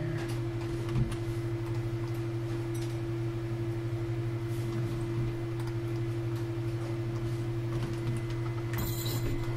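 Steady low electrical hum with scattered faint computer mouse clicks and keyboard taps, and a brief hiss about nine seconds in.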